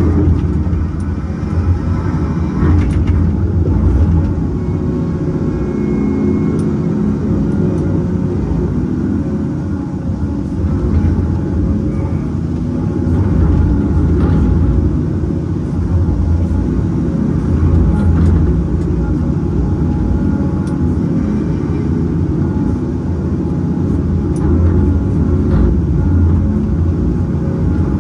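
Cat 568 log loader's diesel engine running steadily while the grapple works, with a few light knocks as pulp logs are set onto the truck.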